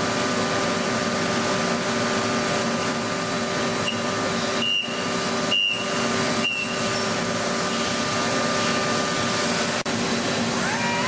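Multi-axis CNC machine tool running: a steady machine hum and hiss with a few held tones, broken by short dropouts, and a rising whine near the end as a drive motor speeds up and then holds its pitch.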